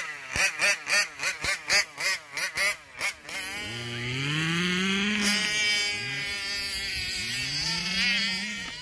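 Small two-stroke petrol engine of a 1/5-scale RC car: a quick run of short throttle blips, about three a second, then steady revving that rises and falls in pitch twice.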